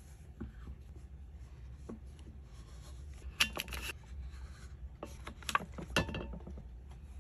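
A leather-hard clay bowl being handled on a potter's wheel head: scattered soft knocks and scrapes, with a few sharper clicks around the middle and again about three-quarters in, as the bowl is cut in half.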